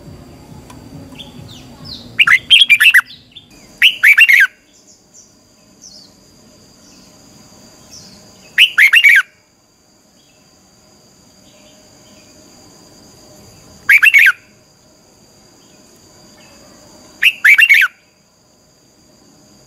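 Red-whiskered bulbul singing: five short, loud phrases of quick, twisting whistled notes, each under a second long and a few seconds apart.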